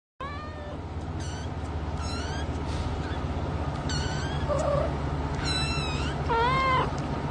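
A cat meowing in a series of short, high, wavering calls, about eight of them, over a steady low hum.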